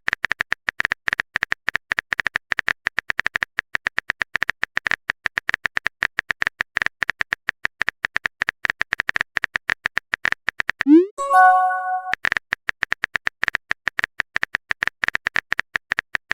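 Rapid phone-keyboard typing clicks, each with a short beep, as a text message is typed out. About 11 s in the typing stops for a short upward swoop and a chime, the sound of a message being sent, then the typing clicks start again.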